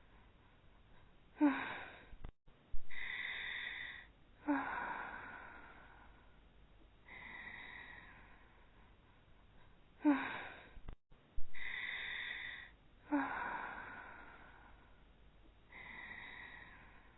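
Cartoon snoring from two sleeping anime characters: short snorting breaths alternate with high, wheezy, whistling breaths. The same snore sequence repeats about every nine seconds, heard twice.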